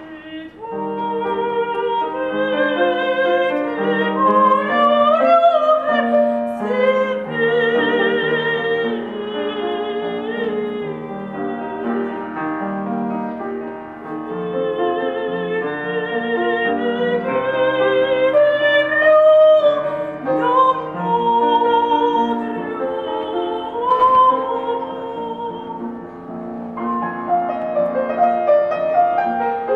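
A woman singing in a classical operatic style with strong vibrato, accompanied by a grand piano. The voice breaks off briefly between phrases about halfway through and again near the end.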